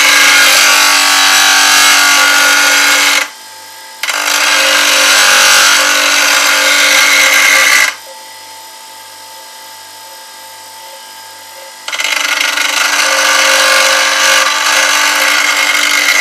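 Bench grinder wheel grinding the steel bevel of a bowl gouge held in a fingernail jig, sharpening it. There are three grinding passes of a few seconds each: the first ends about 3 s in, the second runs to about halfway, and the third starts about 4 s later. Between passes the grinder runs on its own, a quieter steady hum.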